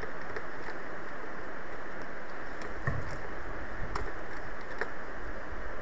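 Steady hiss of microphone and room background noise, with a few faint computer keyboard clicks scattered through it as code is typed.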